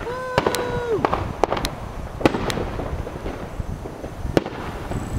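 A train horn sounds one blast of about a second, its pitch sagging as it cuts off, while the air tanks are being emptied. Fireworks crack and pop several times after it.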